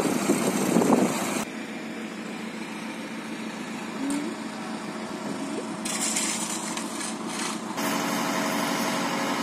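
Heavy vehicle engines running steadily at a street work site. The sound changes abruptly about a second and a half in and again around six and eight seconds, settling into a steady engine hum near the end.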